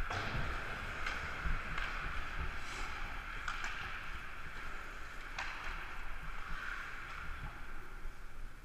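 Ice hockey rink ambience picked up by a helmet-mounted action camera: a steady hiss over a low rumble, with a handful of sharp knocks from the play on the ice.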